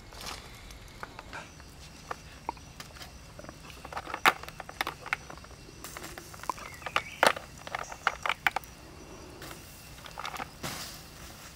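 Sharp clicks and light knocks as hard river-snail shells and lumps of charcoal are set down and shifted on a bed of glowing embers, a handful of separate strikes with the loudest about four and seven seconds in, over a faint steady outdoor background.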